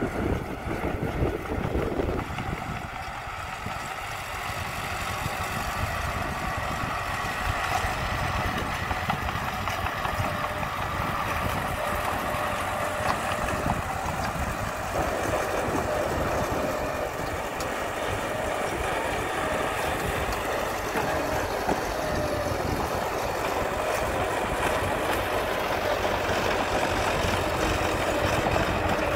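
Small crawler bulldozer's diesel engine running steadily as it pushes a pile of dirt and rock, with a dense clatter throughout. The engine note shifts about halfway through.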